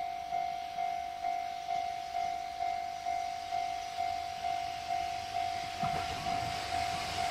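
Japanese level-crossing warning bell ringing in even, repeated clangs about twice a second. Near the end the rumble of an approaching freight train starts to rise under it.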